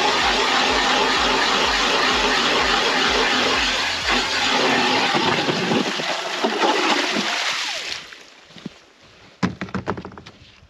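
Power ice auger drilling a hole through the lake ice, a loud churning of ice chips and slush that runs down and stops about eight seconds in. A few sharp knocks follow as the auger is set down on the sled.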